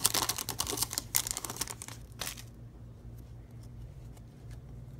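Foil trading-card pack wrapper crinkling and crackling as it is torn open, dense for about two and a half seconds, then dying down to a few faint ticks.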